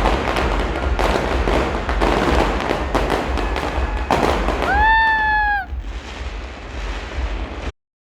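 Fireworks display: rapid crackling and repeated bangs from bursting shells. About five seconds in, a short high-pitched cry or whistle rises and then falls for just under a second. After it the crackling goes on more quietly, and it cuts off suddenly near the end.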